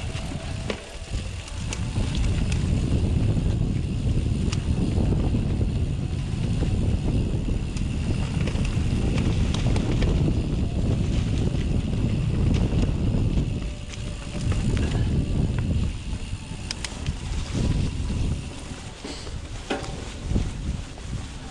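Wind buffeting an action camera's microphone during fast movement, a heavy low rumble that eases about two-thirds of the way through, with a few scattered clicks.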